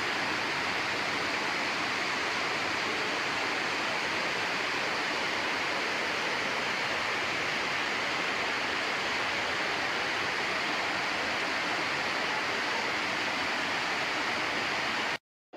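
Artificial waterfall pouring over rocks into a pond: a steady rush of falling water that stops abruptly near the end.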